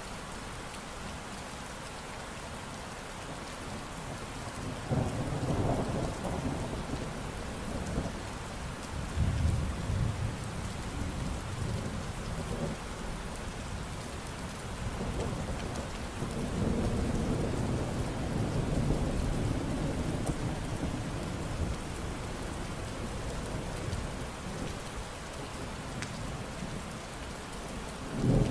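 Steady rain falling, with thunder rumbling in low rolling swells several times, the strongest about a third of the way in and again right at the end.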